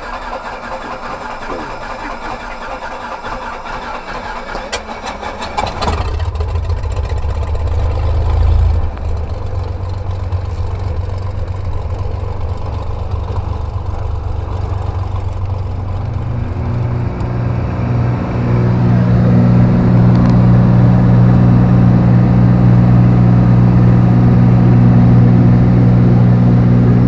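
Light aircraft's engine heard from inside the cabin, getting louder in a step about six seconds in and again around eighteen seconds in as power comes up for the takeoff run, then holding steady at full power as the plane climbs.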